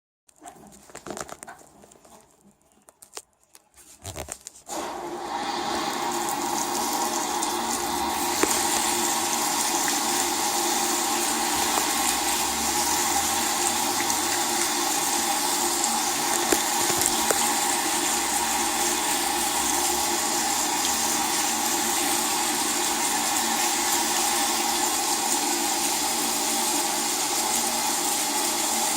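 LG WT-R852 direct-drive washing machine taking in water through its fill valve. A few faint clicks come first, then the water starts rushing in about four and a half seconds in, grows over a few seconds and runs steadily.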